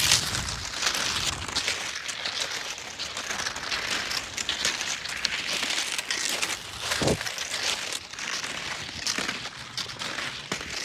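Cross-country skis sliding and crunching over crusty, icy snow in a steady rough hiss, with a low thump about seven seconds in.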